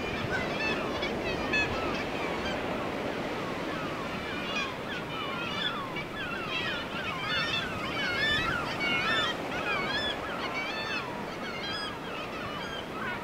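A seabird colony calling: many overlapping short, bending calls from gulls, kittiwakes and other cliff-nesting seabirds. Underneath is a steady rush of surf and wind.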